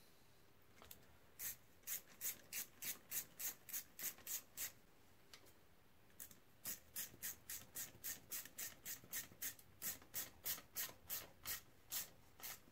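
Ratchet being worked back and forth to tighten a motorcycle radiator's mounting bolt: a regular run of short rasping clicks at about three strokes a second, stopping for about a second and a half near the middle, then going on.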